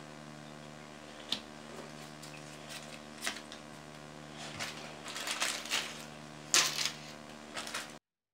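Game cards and punched cardboard tokens handled and set down on a cutting mat: scattered light taps, clicks and slides, sparse at first and busier in the second half, loudest a little before the end, over a faint steady hum. The sound cuts off just before the end.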